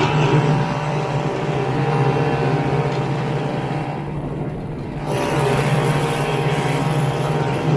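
1969 Ski-Doo Olympique's 320cc single-cylinder two-stroke engine running steadily under way. The sound dips and turns muffled for about a second, roughly four seconds in, then comes back.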